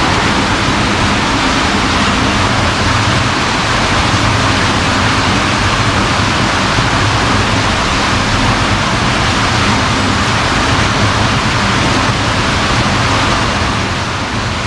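Loud, steady rush of fast-flowing water in a stream channel.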